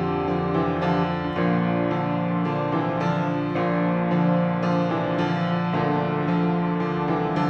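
Background piano music, notes changing about twice a second over a held low tone.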